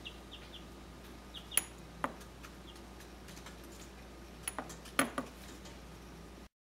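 Chicks peeping faintly, a few short high peeps, with several sharp clinks and knocks against a plastic tub, the loudest about a quarter of the way in and again about three quarters through. The sound cuts off just before the end.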